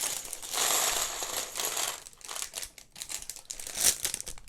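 Plastic parts bag crinkling, then small plastic Lego Technic pieces clicking and clattering as they are handled and dropped, the loudest click a little before the end.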